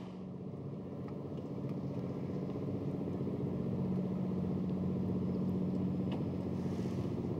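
Engine of a glass-roofed river sightseeing boat running steadily, a low droning hum that grows louder over the first few seconds and then holds.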